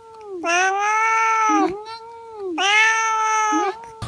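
A cat meowing: two long, drawn-out meows of about a second each, each dropping in pitch as it ends, with softer, shorter calls between them. The sound cuts off suddenly near the end.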